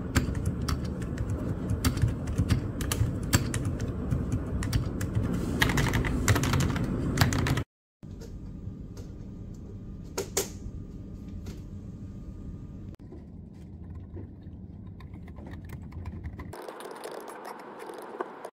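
Typing on a computer keyboard: a fast, dense run of keystroke clicks for the first half. It breaks off sharply about eight seconds in and picks up again quieter, with fewer keystrokes.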